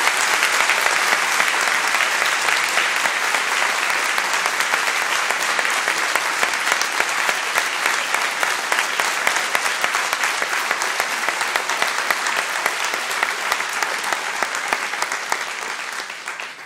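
Audience applauding: dense, even clapping that dies away at the very end.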